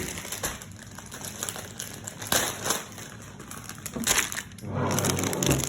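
Crinkling and rustling of something dry being handled, with a couple of sharper crackly bursts about two and a half and four seconds in.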